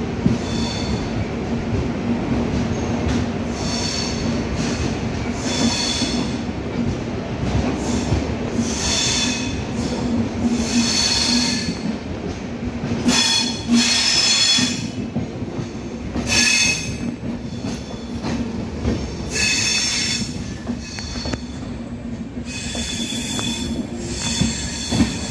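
Passenger train coach rolling slowly, heard from inside the coach: a steady low rumble and hum of wheels on rail, with short high-pitched wheel squeals every couple of seconds.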